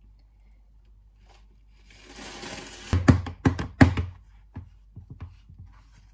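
A short soft hiss, then about five sharp knocks within a second as a white plastic tray of freshly mixed alabaster and water is rapped on the countertop to bring up air bubbles, followed by a few lighter clicks.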